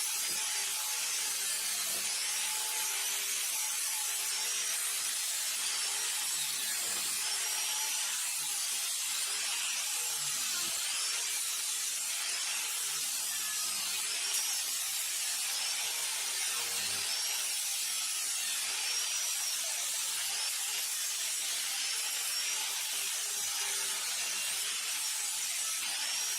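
Electric arc welding on chain-link wire and steel: a steady, unbroken frying crackle.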